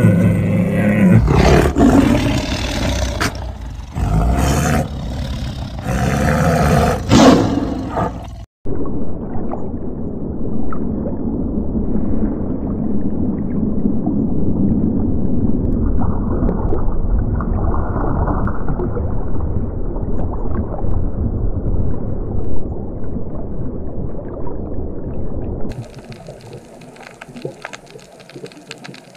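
Tigers growling and roaring in a run of loud, low calls. About eight seconds in it cuts abruptly to underwater sound: a steady low rumble of moving water. Near the end this drops to a quieter, fine crackling hiss.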